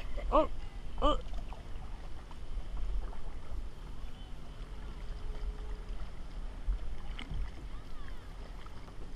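Kayak being paddled on open water: steady low wind rumble on the microphone over lapping water, with a sharp paddle splash about seven seconds in. Near the start, two short pitched vocal sounds less than a second apart are the loudest thing.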